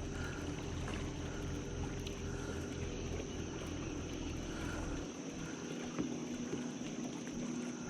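Low rumble of a fishing boat's motor that cuts off about five seconds in, over a steady high insect drone.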